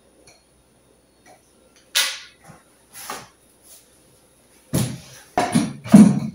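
Handling of a chrome-legged dining chair: a sharp click about two seconds in, a lighter knock a second later, then three heavier knocks and bumps near the end as the chair is turned upright and set down among the other chairs, the last one the loudest.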